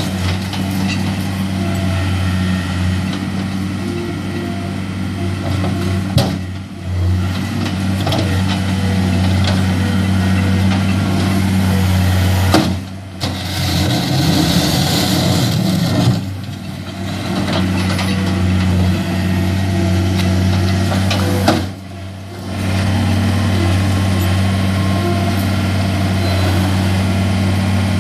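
Diesel engine of a 2007 John Deere 325 skid steer loader running steadily, with a few brief drops in level. A hissing rush is heard about halfway through.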